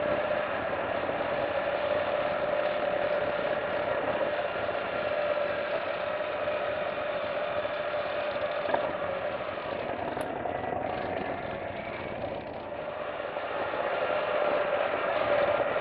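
Motorcycle running at a steady low cruising speed, a continuous engine drone with road noise, picked up by a camera mounted on the moving bike. The drone eases a little past the middle and rises again near the end.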